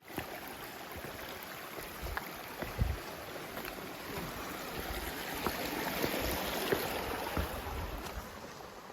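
Rain-swollen mountain creek rushing steadily over rocks, with a few dull low thumps.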